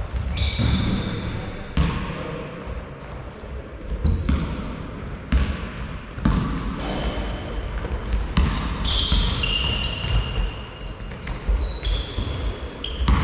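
Basketball bouncing on a sports-hall floor during play, a string of sharp knocks, with high squeaks from players' shoes, echoing in the large hall.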